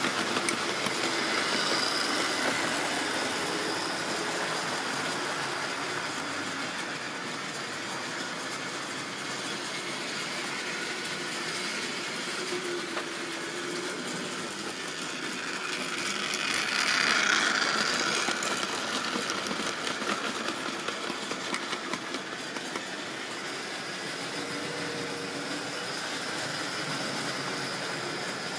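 Model railway train running on the track: the motor's hum and the wheels rattling along the rails, loudest as the wagons pass close at the start, then quieter as the train moves away, swelling again for a couple of seconds about seventeen seconds in.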